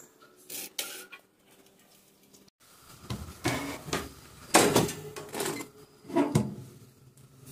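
Metal baking pan scraping and clattering on the wire rack of a countertop oven as it is pulled out, in several loud irregular knocks and scrapes from about three seconds in. A couple of short clicks sound about a second in.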